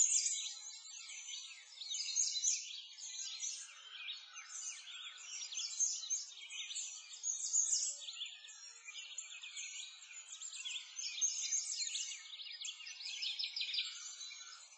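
A dense chorus of many small birds chirping and singing, high-pitched and unbroken, with quick overlapping chirps and trills.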